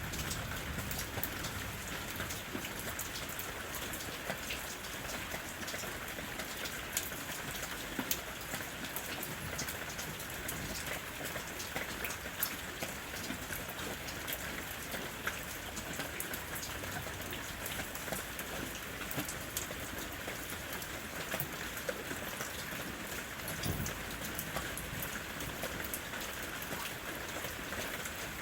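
Steady rain falling in a forest, an even hiss with many small drop impacts ticking through it.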